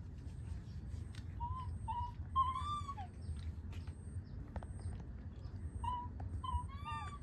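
Young monkeys giving short, high coo calls that rise and fall. There are a few brief ones, a longer arched call a bit over two seconds in, and another run of calls near the end.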